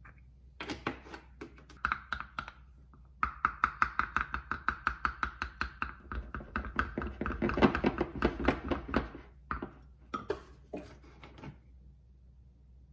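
A spoon stirring Greek yogurt and milk fast in a glass mug, clinking against the glass about five times a second with a ringing note. A few separate taps come before and after the fast stirring.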